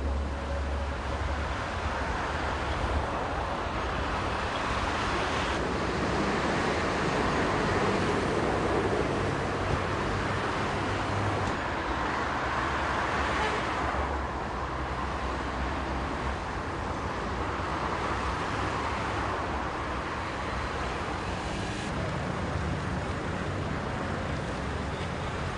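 Steady road traffic noise from a busy motorway, with the hiss of tyres on wet asphalt; the noise shifts in tone a few times.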